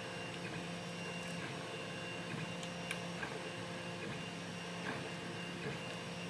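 Faint, scattered ticks of a short hook pick working the pins inside a Kwikset lock cylinder, over a steady background hum.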